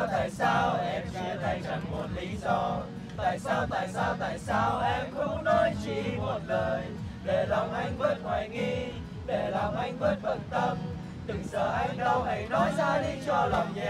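Acoustic guitar strummed while a group of young men sing along together, casual and unpolished.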